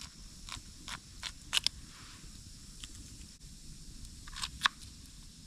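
Knife cutting potato into small pieces: a scatter of sharp, irregular clicks and taps from the blade, grouped in short runs.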